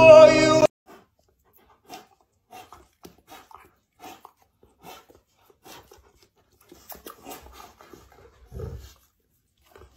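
Music with singing cuts off within the first second. Then come faint, scattered short sounds of a Rottweiler close up, licking and breathing at a person's face, with one louder, low sound near the end.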